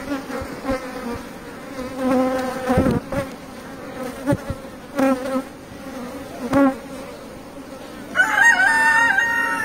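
Honeybees buzzing around an opened hive as a brood frame is lifted out: a pitched hum that swells and fades, with a few light knocks from the wooden frame. Near the end a loud, long call rises and then holds for over a second.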